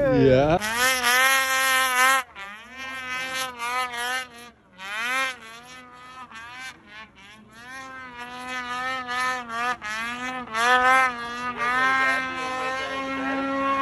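Snowmobile's two-stroke engine revving with a high buzz, rising in pitch at the start, then the throttle is opened and let off again and again before a long held rev that cuts off at the end.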